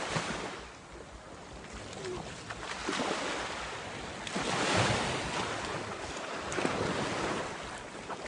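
Sea waves washing up the shore, each wash of surf swelling and fading, with wind on the microphone.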